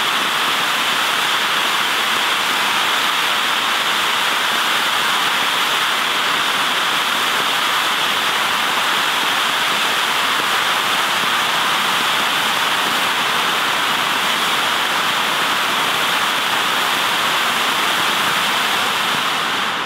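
Stucki 'Meerjungfrau' gold fountain firework (Vulkan) burning with a steady, even hiss and no bangs.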